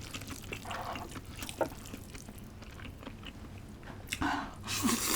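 Close-miked eating sounds of a person eating spicy noodles with crunchy old cucumber: soft chewing and small mouth clicks, then a louder, longer stretch of noisy eating about four seconds in.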